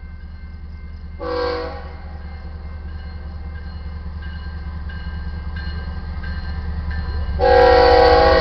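Air horn of an approaching GE ES44C4 diesel locomotive sounding for the grade crossing: a short blast about a second in, then a loud long blast starting near the end. Under it the low rumble of the oncoming train grows louder, and the crossing's warning bell rings steadily.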